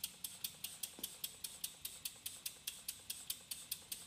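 Model horizontal steam engine built from a PM Model Engines casting kit, running steadily on live steam: an even rhythm of short sharp exhaust chuffs and clicks, about seven or eight a second.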